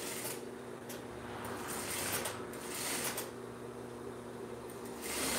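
Juki industrial straight-stitch sewing machine running over a steady low hum, stitching sheer fabric with crin in a few short, slow runs, the fabric rustling as it is fed under the foot.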